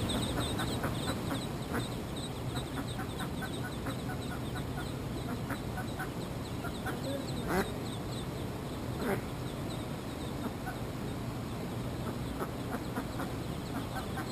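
Mallard ducklings peeping over and over, with the mallard hen giving two louder quacks about seven and a half and nine seconds in.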